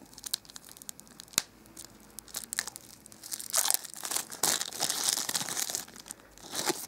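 Thin clear plastic film wrapper crinkling and tearing as it is peeled by hand off a bath ball. A few sharp crackles come early, and the crinkling is densest and loudest in the second half.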